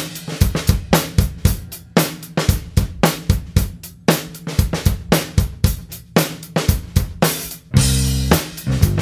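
A rock band's drum kit plays the song's intro beat alone, with kick, snare, hi-hat and cymbals in an even rhythm. Near the end, bass and guitar come in under the drums.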